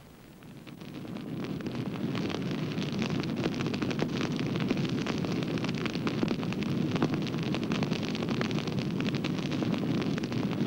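Forest fire burning: a dense, steady noise thick with crackles, fading in over the first two seconds.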